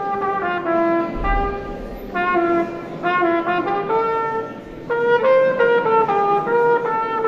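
Plastic trumpet playing a solo melody, a string of short and held notes stepping up and down, with a brief lull about four and a half seconds in before it comes back louder.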